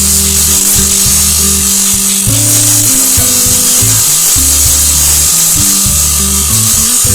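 Background music: a tune of low held notes that change pitch every half second or so, over a bright hiss.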